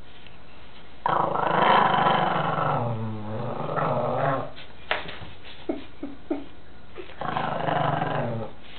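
Lhasa Apso dog growling at a hairbrush it is attacking: a long growl starting about a second in, a few short clicks and yips in the middle, then a second, shorter growl near the end.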